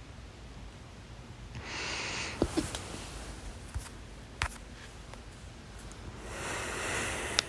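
A person hiccuping: several sudden, sharp hics, two close together about two and a half seconds in and more later. A breathy rush of air comes just before the first hics and again near the end.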